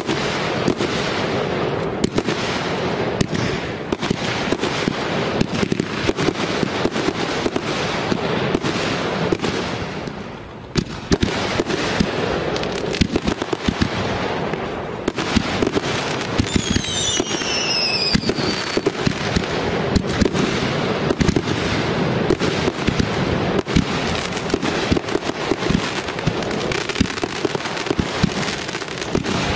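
Aerial fireworks going off in quick succession: a dense, continuous run of bangs and crackling. A short whistle falling in pitch a little past halfway.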